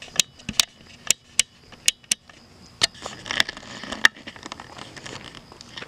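A string of sharp, irregular clicks and crunches close to the microphone, about nine in the first four seconds, then a fainter crackling shuffle.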